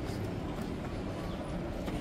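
Footsteps of someone walking, about two steps a second, over a steady low rumble with faint voices in the background.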